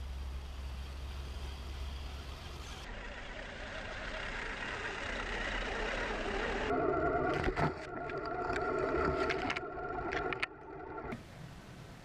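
Electric drive motors and gearboxes of a three-motor RC scale crawler on snowcat tracks, whining as it pushes through deep snow. The whine is loudest and clearest from about seven to ten seconds in, with scattered clicks, and fainter and noisier before and after.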